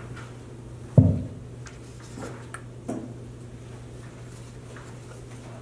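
A sharp, loud thump about a second in, followed by a few lighter knocks and small clicks from people handling things, over a steady low hum.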